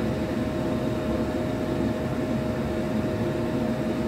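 Steady whirring hum of a running fan, with one constant mid-pitched tone over an even rush of air.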